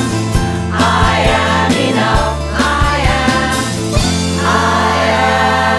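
Choir singing over a band with bass and percussion. About four seconds in the music settles on a held final chord.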